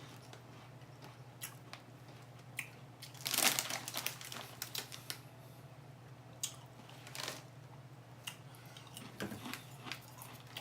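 Wavy potato chips being crunched and chewed, with crinkling of the foil chip bag: scattered short crunches and rustles, the loudest about three and a half seconds in.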